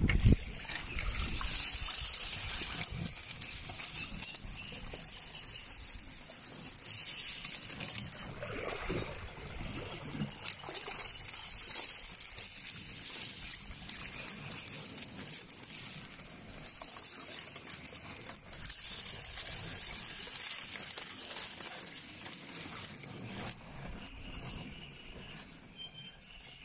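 Cattail and reed stems rustling and swishing, with water sloshing and trickling, loudest in the first few seconds.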